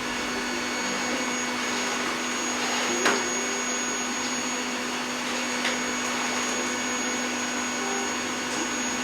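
Vacuum cleaner running steadily with a constant hum and a high whine. There is a sharp knock about three seconds in and a lighter one a few seconds later.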